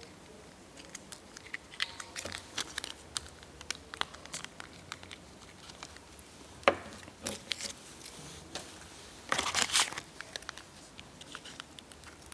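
Crinkling and tearing sounds with scattered light clicks, a sharp click about six and a half seconds in, and a louder stretch of rustling near ten seconds in.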